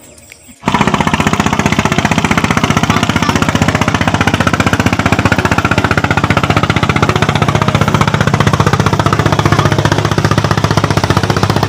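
Engine of a small wooden motorboat running close by on the river: a loud, fast, even puttering over a steady low drone. It starts abruptly about half a second in.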